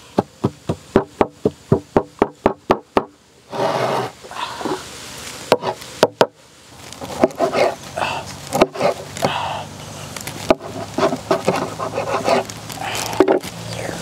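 Pestle pounding in a mortar, an even run of knocks about three or four a second that stops about three seconds in. Then a large knife chopping limes on a wooden table: a few single sharp chops among softer handling sounds.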